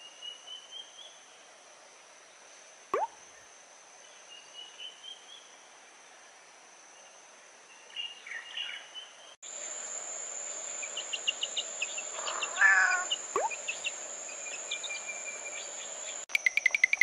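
Outdoor ambience of a steady, high insect drone with scattered short bird chirps, twice broken by a quick falling 'plop' sound. About halfway through, the drone turns higher and louder and bird calls come more often.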